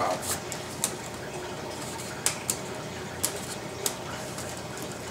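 Plastic coral shipping bags handled inside a styrofoam box: about six short, sharp crinkles and taps over a steady background hiss.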